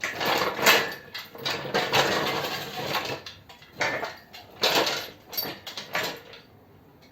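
Irregular metallic clanking and rattling of lifting gear being hooked onto a screw-in lifting eye while an engine block is lifted, with brief ringing clinks of metal on metal, dying away near the end.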